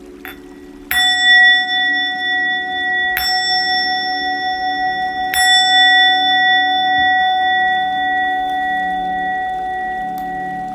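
A singing bowl struck three times, about two seconds apart. Each strike rings on with a long, pure tone and fades slowly, the rings overlapping, over a soft steady music drone.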